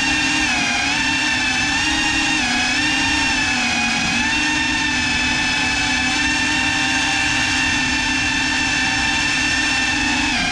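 Small FPV quadcopter's motors and propellers whining steadily in flight, heard close up from the onboard camera; the pitch wavers slightly up and down as the throttle shifts.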